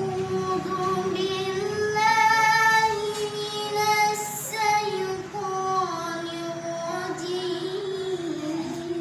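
A child's solo voice chanting in long, held, ornamented notes that glide from one pitch to the next, in the melodic style of Qur'an recitation (tilawah).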